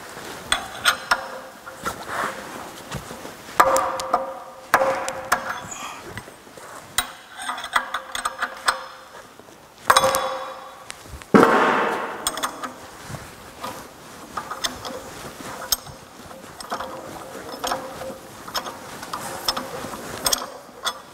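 Metal clinks, clanks and knocks from hand tools and steel parts as the crankshaft timing sprocket is fitted onto a car engine on a stand, with a few louder knocks in the middle.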